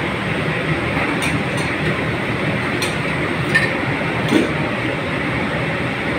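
A steady rushing background noise with a few scattered sharp clicks: a knife tapping on a plastic cutting board and a stainless steel bowl clinking as chopped chilies are moved into it.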